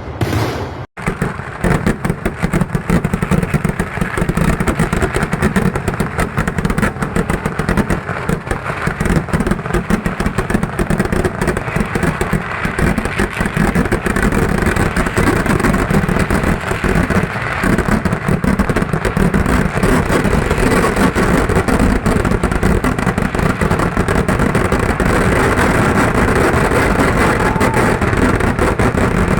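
Kerala festival fireworks (vedikettu): a loud, dense barrage of rapid firecracker explosions going off in quick succession, merging into an almost unbroken rattle toward the end.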